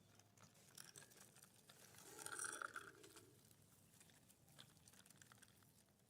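Faint scratchy rubbing and small clicks, near silence overall, with a slightly louder stretch of scrubbing about two seconds in: a dirty toy truck being brushed clean.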